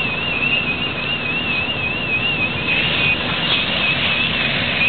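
Steady rushing noise of a fire hose fog stream playing on a burning propane tank, with the pumper's engine running under it. Over it, an alarm's high electronic tone warbles up and down several times a second.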